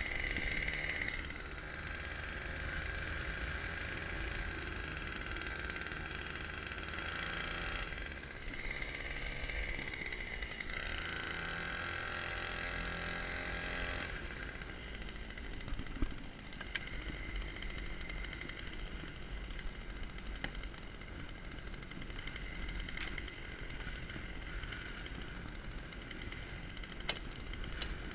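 Small outboard motor on a kayak running steadily.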